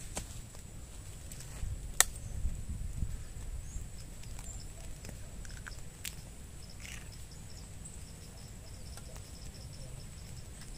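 Outdoor ambience of insects: a steady high buzz with a faint repeating chirp joining about halfway through. Low rumble in the first few seconds and a few sharp clicks or knocks, the loudest about two seconds in.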